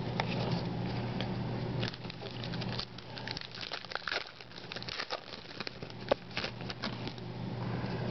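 Crinkling and light clicking of trading cards and their foil pack wrappers being handled, scattered through the middle. A low steady hum runs under it and stops about two seconds in.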